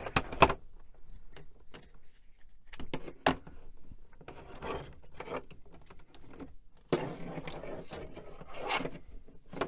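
Handling noise from taking apart an old computer: short clicks and bouts of rubbing and scraping as its parts and cable connectors are worked loose by hand.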